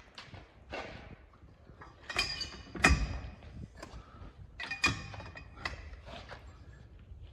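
Metal knocks and clanks while working a seized rear brake drum off its hub. There are several sharp strikes, the loudest about three seconds in and another near five seconds, some ringing briefly like struck steel, with scraping and handling noises between them.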